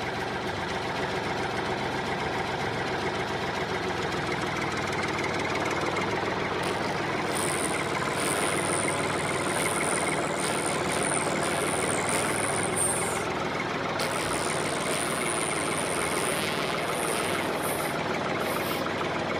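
Tractor engine running steadily, a recorded engine sound rather than the toy itself, with a high thin whistle coming and going from about seven seconds in.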